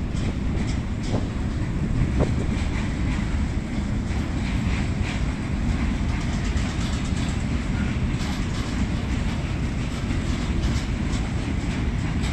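Freight train passing, its wagons rumbling steadily with wheels clacking over the rail joints.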